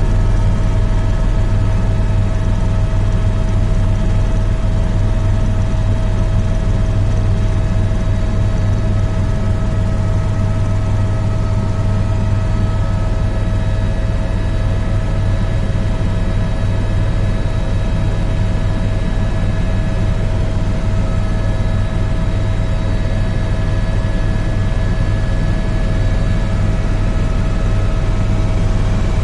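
Helicopter in flight, heard from inside the cabin: a loud, steady drone of rotor and turbine engine with a deep throb underneath and a constant whine above, unchanging throughout.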